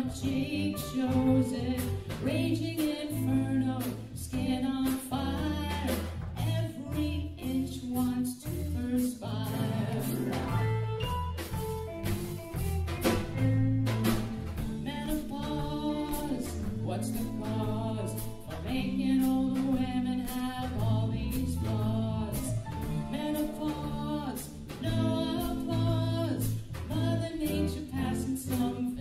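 A woman singing a song into a microphone, backed by a live band of keyboards, electric guitar, bass guitar and drums playing a steady beat.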